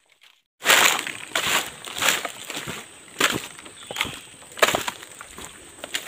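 Footsteps crunching through dry fallen leaves and twigs, one crunch about every half second, starting about half a second in.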